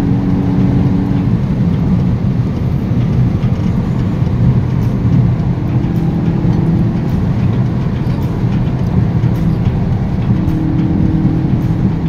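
VW Golf 8 GTI Clubsport's turbocharged 2.0-litre four-cylinder engine running at a steady cruising speed, heard inside the cabin over tyre and road noise. The engine pitch holds steady throughout, with no revving.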